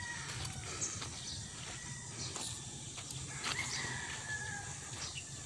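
Footsteps on dirt and gravel with faint distant bird calls, one longer call drawn out a little past the middle.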